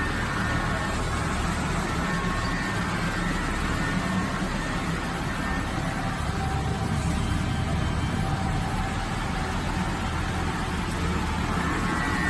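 Steady machinery noise: a low drone under an even rush, unchanging throughout.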